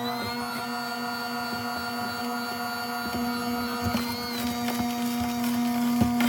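A steady hum held at one pitch, with overtones, and a few light clicks and knocks over it.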